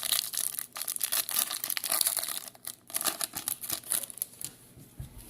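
Foil wrapper of a Topps football card pack crinkling and tearing as it is opened by hand, a dense crackly rustle that tails off near the end.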